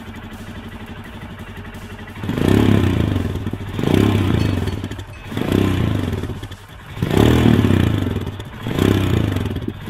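Royal Enfield Himalayan BS6's 411 cc single-cylinder engine idling, heard at the exhaust. About two seconds in, the throttle is blipped five times, roughly every one and a half seconds, each rev rising and dying back to idle.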